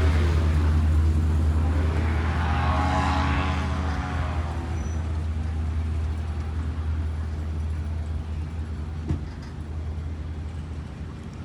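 Vehicle engine running steadily with a low hum. About three seconds in, another vehicle passes close by, swelling and fading. A single short click comes near the end.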